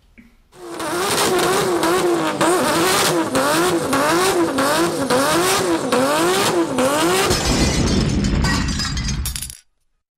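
A car sound with a screech that wavers up and down in pitch about once a second, like tyres squealing, over engine and road noise. A heavier low rumble comes in near the end, and the sound then cuts off abruptly.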